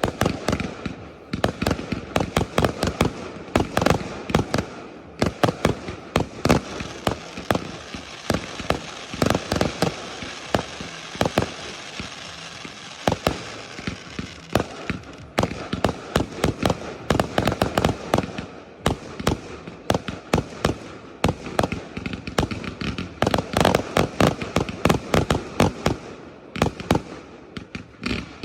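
Professional fireworks display: a rapid, continuous barrage of shell bursts and bangs, several a second, with crackle between them.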